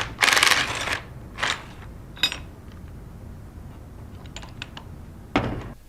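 3/8-inch impact gun hammering fasteners loose on a metal diaphragm pump's discharge manifold: a rattling burst of about a second at the start and a shorter one near the end. Between them come metal clinks and light clicks of parts being handled, one with a short ring.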